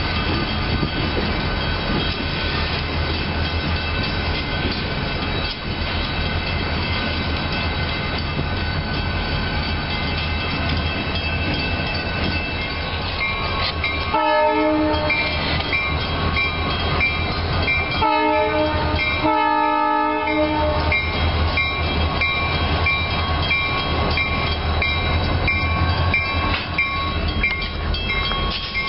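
A diesel freight train rumbling through a grade crossing while the crossing bell rings. The approaching Guilford Rail System locomotive sounds its air horn in three blasts about halfway through.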